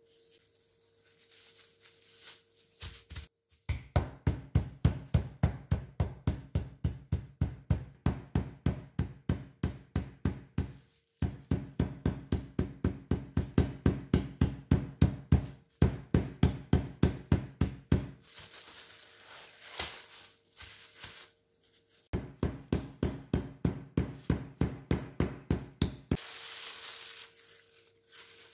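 Pork loin being pounded flat through plastic wrap on a cutting board with a meat mallet: runs of rapid, even knocks, about three to four a second, in several bursts. Plastic wrap crinkles in the pauses between runs and near the end.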